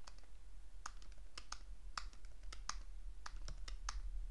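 Computer keyboard keys pressed in about a dozen irregular, sharp taps as code is typed and edited, over a low steady hum.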